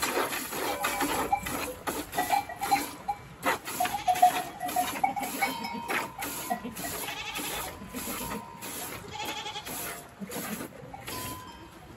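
Goats bleating, over a steady rhythm of milk squirting into a plastic bucket as a goat is milked by hand.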